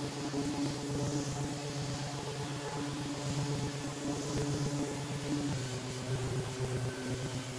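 Electric random orbital sander running steadily across a plywood panel, a continuous motor hum with a hiss of abrasive on wood.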